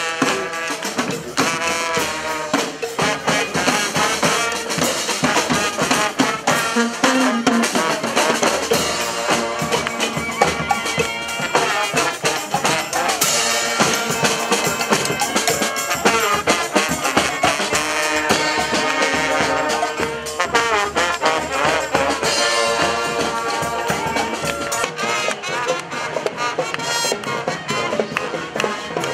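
Street brass band marching and playing, horns over a steady drum beat.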